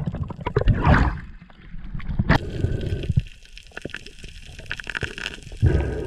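Water gurgling and sloshing around a camera as it goes under, then muffled underwater noise full of small clicks, with a sharp knock about two seconds in and another loud gurgling surge near the end.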